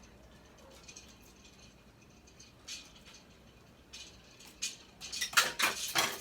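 Kitchen utensils and containers being handled: a few light scrapes, then a quick, loud clatter of rattling and clicking near the end.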